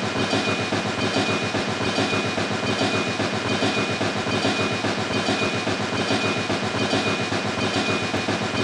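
Small motorized miniature model running steadily, a fast even clatter with a thin high whine over it.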